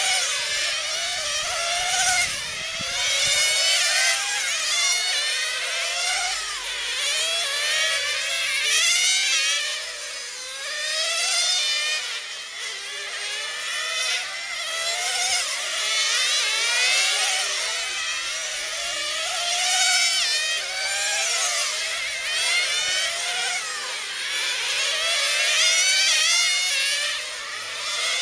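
Several 1/10-scale nitro RC touring cars racing, their small two-stroke glow engines making a high, buzzing whine. The pitch rises and falls over and over as the cars accelerate and back off, with several engines overlapping.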